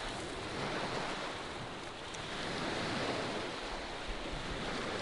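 Small sea waves washing onto a pebble shore: a steady wash of surf that swells a little about halfway through, with some wind on the microphone.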